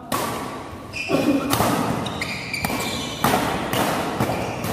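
Badminton doubles rally: a quick run of sharp racket strikes on the shuttlecock, about every half second, with short high squeaks of shoes on the court floor and spectators' voices behind.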